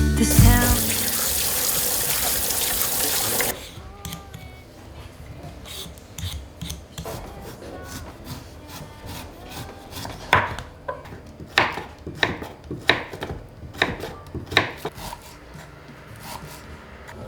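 Kitchen tap running, shut off abruptly after about three and a half seconds. Then radish is prepared on a wooden cutting board: scraping and rubbing, and a run of sharp knife knocks about a second apart near the middle and end.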